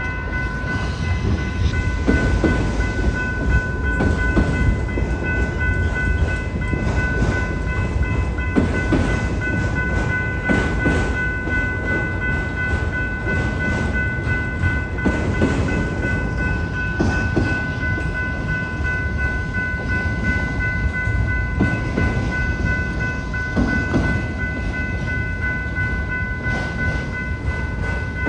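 BNSF freight train rolling through a grade crossing: a steady low rumble with the wheels clacking over rail joints at irregular intervals, under a continuous ringing crossing bell.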